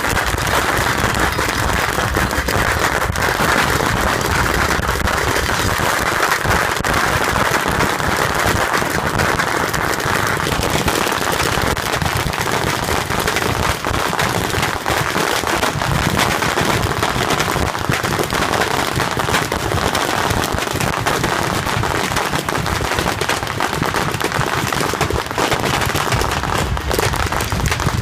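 A beehive fireworks battery firing a mass of bottle rockets at once: a dense, unbroken crackle of rapid bangs with no let-up.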